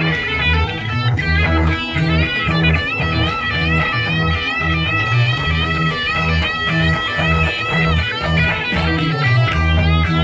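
Instrumental break of a 1970s Filipino rock song with the drums removed: electric guitar playing over a steady, pulsing bass guitar line, with no vocals.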